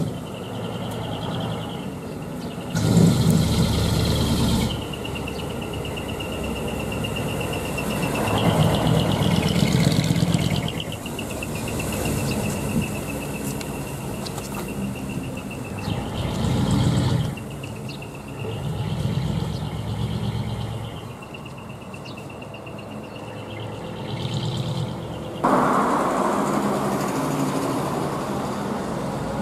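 Dekotora diesel truck with a split exhaust manifold (mani-wari) and dual mufflers running at low speed, its exhaust note swelling and fading several times as it pulls away and passes. A steady high insect buzz runs underneath for much of the time.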